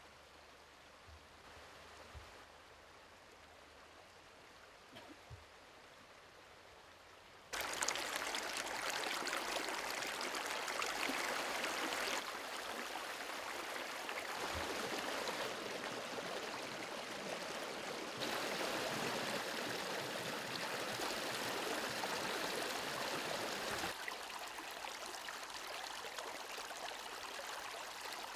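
Flowing stream water: a steady rush that sets in suddenly about seven seconds in, after a faint hiss, with its level stepping up and down a few times.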